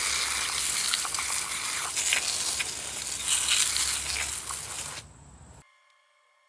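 Cleaning of a greasy flathead Briggs & Stratton engine block: a steady hissing, scrubbing noise with small clicks and uneven swells, which stops about five seconds in.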